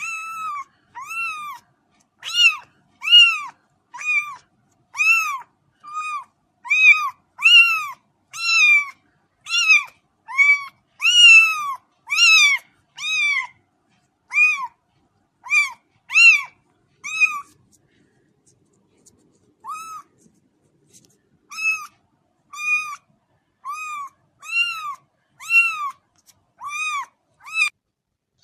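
Kitten meowing again and again in short, high-pitched calls that rise and fall in pitch, about one or two a second, with a pause of about two seconds about two-thirds of the way through.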